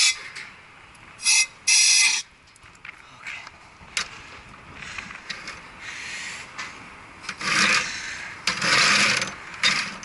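Short bursts of rubbing and scraping, the loudest about two seconds in and again near the end, with a few light knocks between them.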